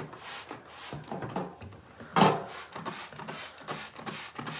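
Trigger spray bottle squirting water onto hair in a run of quick sprays, with one louder burst about two seconds in.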